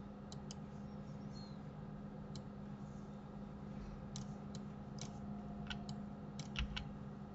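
Faint scattered clicks of a computer mouse and keyboard, about a dozen, most of them in the second half, over a steady low electrical hum.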